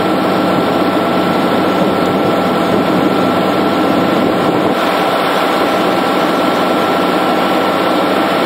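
A steady engine running without change, under a loud even rush and a thin constant whine.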